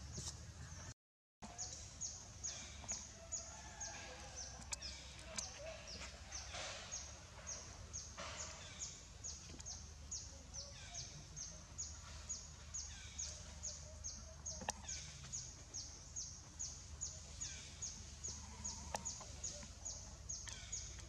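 Outdoor ambience carried by a high-pitched chirp repeating evenly about two to three times a second, with a few soft squeaks and faint clicks. The sound cuts out completely for a moment about a second in.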